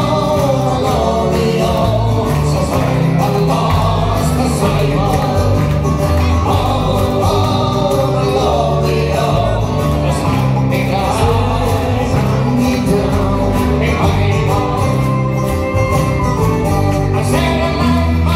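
Irish folk band playing live: acoustic guitar, banjo, fiddle, electric bass and tin whistle over a steady beat.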